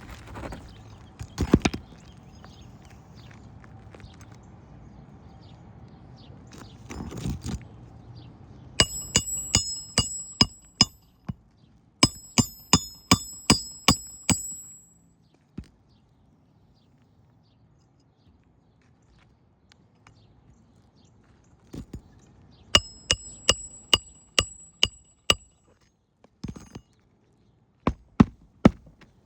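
A hammer driving roofing nails into a replacement asphalt shingle: runs of sharp, ringing metal strikes, about three a second, with pauses between the runs. Quieter scraping and handling of the shingle come first.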